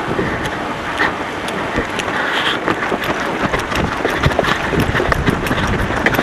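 Wind buffeting the camera microphone: a steady rush of noise with frequent rustles, clicks and knocks.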